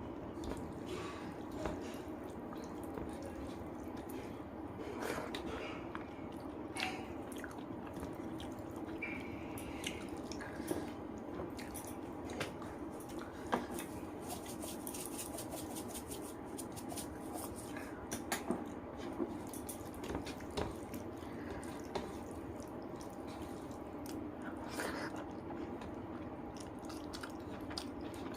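Close-up eating sounds: chewing and wet squishing of rice with chicken curry, with scattered small clicks, over a steady low background hum.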